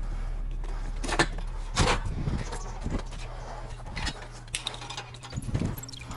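Irregular clicks, clinks and light knocks of tools and metal parts being handled during air-conditioner installation work, with a low steady hum in the first two seconds.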